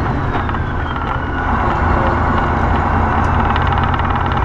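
Semi truck's diesel engine running, heard from inside the cab as a steady low rumble, with a high whine falling in pitch during the first second as the truck slows.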